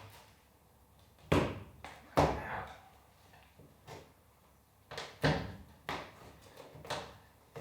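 A series of heavy thumps and knocks on a van's cracked windscreen and its frame as the glass is forced out, two loud ones about a second and a half and two seconds in, then several lighter ones near the end.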